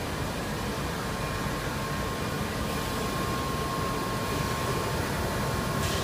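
Steady machinery hum and fan-like hiss of a running rubber extrusion and hot-air vulcanization line, with a thin steady whine over it. A brighter hiss comes in near the end.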